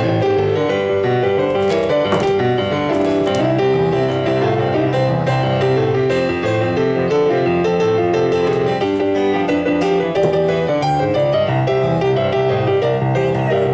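Background piano music, a melody of steady notes over a lower accompaniment that runs without a break.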